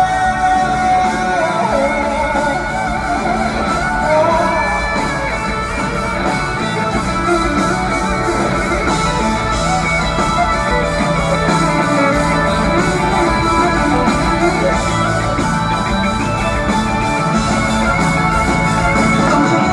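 Live band playing the instrumental break of a rock ballad, with a melody line over steady bass and drums, echoing in a large hall.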